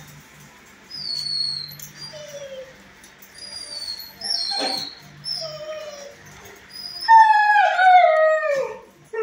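Dog whining: several short, high falling whines, then about seven seconds in a louder, longer whine that slides down in pitch like a short howl.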